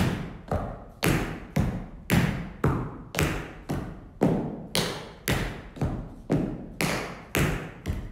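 Tap dancing: two dancers' tap shoes striking the studio floor in a steady, even rhythm of about two sharp taps a second, with lighter taps in between, as they dance dig heels and paddle rolls.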